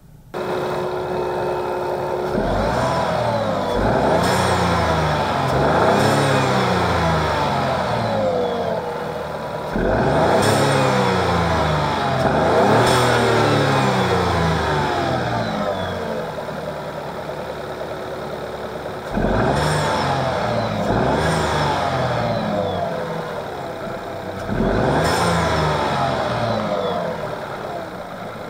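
Renault Clio V's 1.0 TCe three-cylinder turbo petrol engine idling, then revved repeatedly in free-rev blips, each rising quickly and dropping back toward idle, in clusters of two or three.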